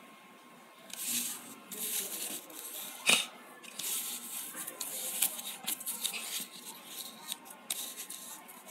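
Cardboard tangram pieces slid and scraped by hand across a rough surface, in a series of short rasping scrapes, with one sharp tap about three seconds in.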